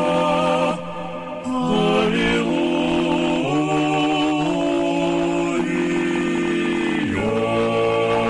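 A choir singing a slow chant without instruments, holding each chord for about a second or more before stepping to the next.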